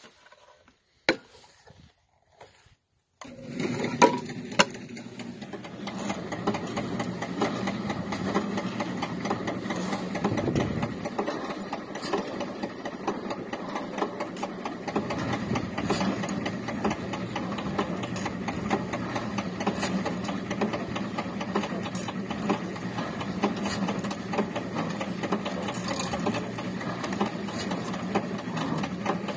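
Homemade backyard T-bar tow rope machine: after a few clicks, its drive and overhead pulley wheel start up about three seconds in and run steadily with a constant hum and a fast mechanical rattle.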